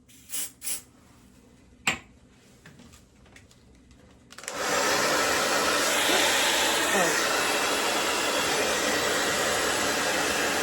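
Two short hisses of a spray can, sprayed onto lifting wig lace, followed by a sharp click. About four seconds in, a hair dryer switches on and blows steadily, setting the sprayed lace.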